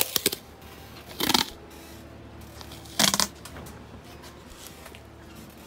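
A few clicks, then two short rustling rasps about two seconds apart, over a low steady hum.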